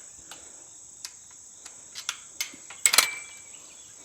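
Steady high-pitched chorus of insects, with a few scattered sharp clicks and knocks, the loudest cluster about three seconds in.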